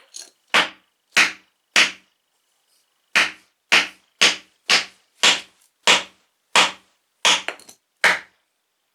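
A piece of wood being struck hard again and again in an attempt to break it. There are about a dozen sharp knocks, roughly two a second, with a pause of over a second after the first few.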